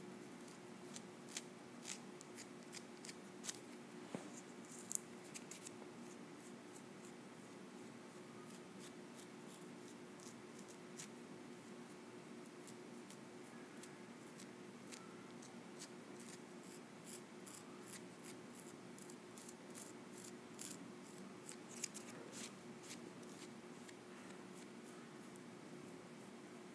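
A dried peel-off face mask being slowly peeled from the skin with the fingernails, giving faint crackling ticks that come in two clusters, the sharpest about five seconds in. A steady low hum lies underneath.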